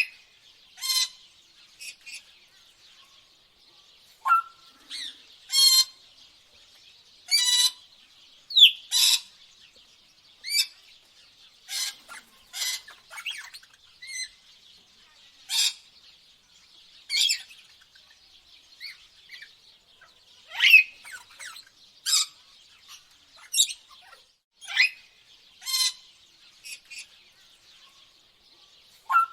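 Tropical birds calling: short, sharp chirps and squawks at irregular intervals of a second or two, some dropping in pitch, over a faint steady high-pitched background.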